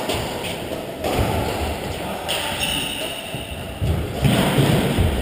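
Players' feet thudding on a sports-hall court during a doubles badminton rally, with heavier thuds about four seconds in. Voices carry around the large hall.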